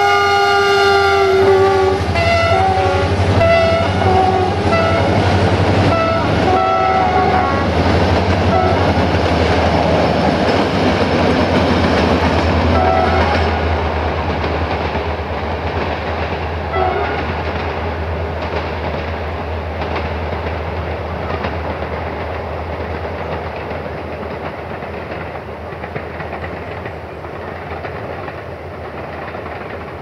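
Class 65 diesel-electric locomotive 65-1300-6 sounding its air horn: a long blast that ends a second or so in, then a string of short toots on changing notes over the next several seconds, with a couple of brief toots later. Under the horn the locomotive's engine and the train's wheels on the rails rumble steadily, fading as the train moves away.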